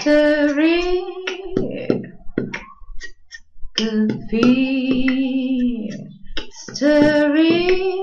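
A woman's voice singing long, held notes in three phrases, with short sharp clicks in the gaps between them.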